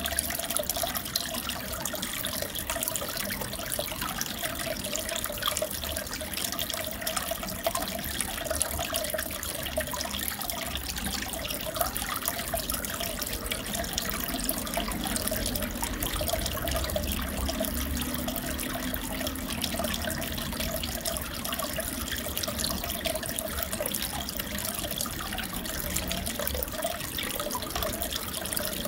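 Water in a fish tank trickling and bubbling steadily, with many small splashy ticks and no pauses.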